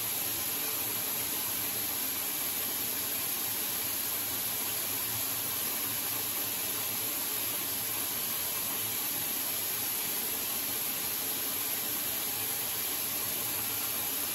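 Bathroom sink faucet running steadily, a stream of tap water splashing into the basin with an even hiss.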